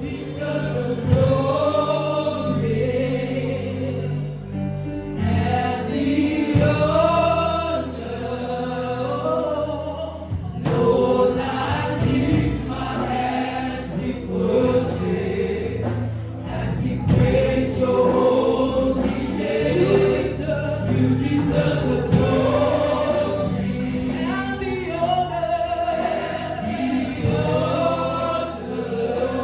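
Gospel worship music: a choir of voices singing a song together over instrumental backing with sustained low notes.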